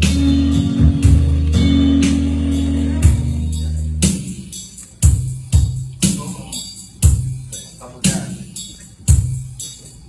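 Live gospel band playing with drums, bass and guitar. A low chord is held for the first few seconds, then the band lands sharp accented hits about once a second, each dying away.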